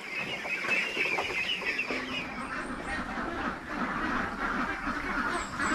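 A crowd of young ducklings peeping and chattering together, many small overlapping calls.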